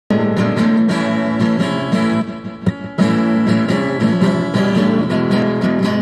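Acoustic guitar strummed in a steady rhythm, chords ringing, with a softer stretch a little after two seconds in.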